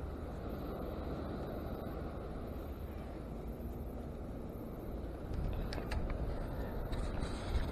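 A sand scoop digging and sifting beach sand in search of a metal-detector target. It makes a few short crunching clicks from about five seconds in, over a steady low rush of wind and surf.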